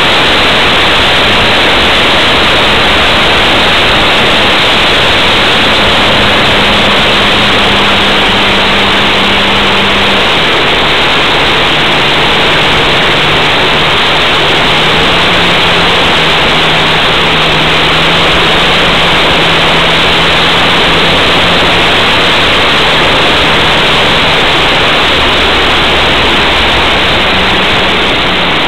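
Loud, steady wind rush on the wing-mounted camera of a flying radio-controlled Yak 54 model, with the model's engine droning faintly underneath. The engine's pitch drops about ten seconds in and then shifts up and down a few times. A low rumble joins near the end as the model rolls on the grass.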